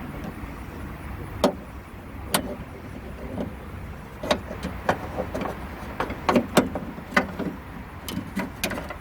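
Irregular sharp clicks and knocks of hard plastic and metal parts being worked by hand, as the trunk lock and its plastic retaining clip are slid off the trunk lid.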